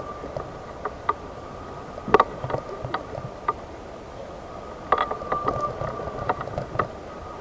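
Electric wheelchair driving along, its motor giving a steady high whine, with clusters of sharp knocks and rattles about two seconds in and again about five seconds in.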